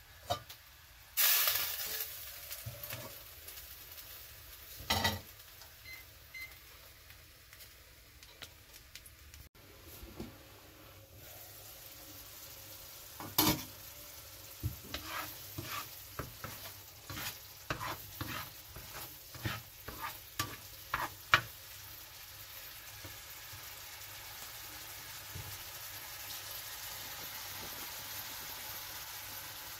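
A slotted nylon spatula stirs and scrapes curry in a nonstick frying pan, with a run of short knocks against the pan in the middle. Under it the curry sizzles and simmers steadily, growing a little louder near the end.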